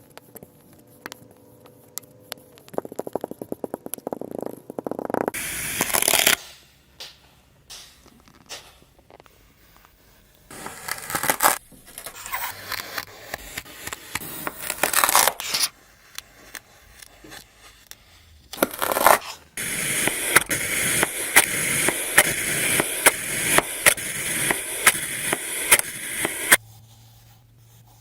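Kinetic sand being cut and scraped, a crisp crunching and scraping in several bursts of a few seconds each, with short pauses between them and the longest burst near the end.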